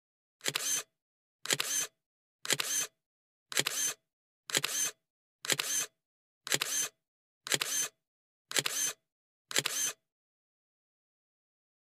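Counter sound effect: a short, sharp click-like sound, repeated ten times at about one a second as the count steps from 1 to 10, with dead silence between the clicks.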